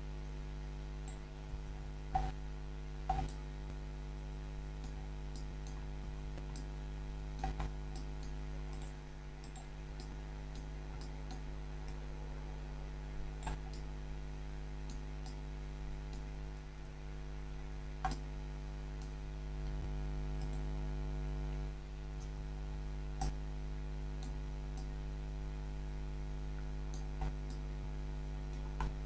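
Scattered single clicks of a computer mouse and keyboard, about eight over the stretch, over a steady buzzing electrical hum picked up by the recording.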